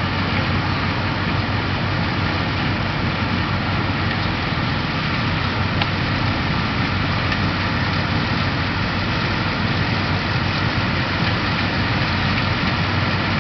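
John Deere 7700 combine running steadily while harvesting corn: a continuous, even mechanical drone with a constant low hum.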